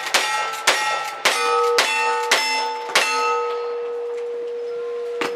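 A lever-action rifle firing a fast string of shots about half a second apart, each shot followed by the ring of a struck steel target at its own pitch. The shooting stops about three seconds in, and the last steel target keeps ringing as it fades.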